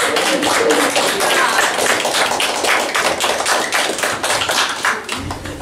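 Audience hand clapping: many quick, sharp claps that die away about five seconds in.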